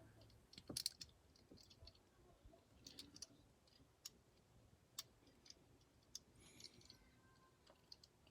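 Faint, scattered clicks and taps of small plastic model-car kit parts being handled and fitted together, a few clicks every second or so with near silence between.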